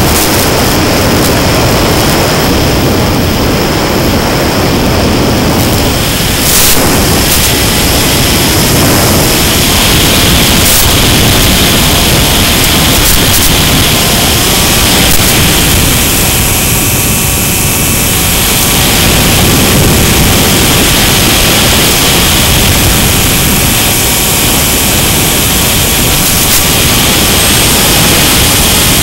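Loud, steady rush of wind and propeller noise on a Mini Skywalker model airplane's onboard camera microphone in flight, with a faint motor whine that shifts in pitch in the second half and a few brief clicks.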